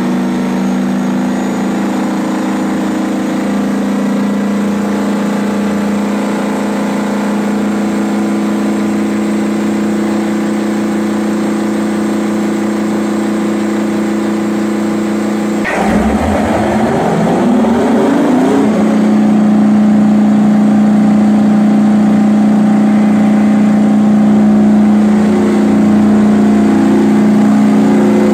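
Detroit Diesel 20V149 two-stroke V20 diesel engine running steadily on a test stand. About halfway through its pitch rises over a few seconds as it speeds up, then it holds steady at the higher, slightly louder speed.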